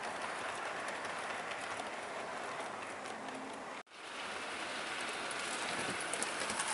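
OO gauge model train running along the track: a steady rolling hiss of wheels and motor. It drops out for an instant just past halfway, and light clicking comes in near the end.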